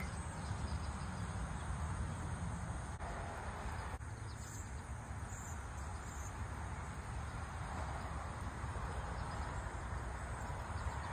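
Steady outdoor background noise, a low rumble and hiss, with faint insect chirping.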